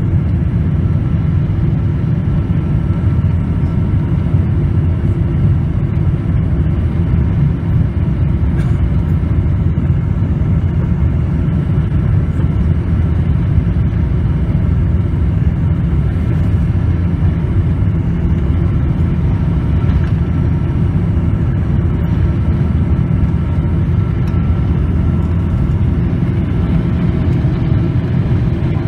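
Cabin sound of a Boeing 777-200 with Pratt & Whitney engines taxiing, heard from a seat over the wing: a loud, steady low drone with a faint thin whine above it.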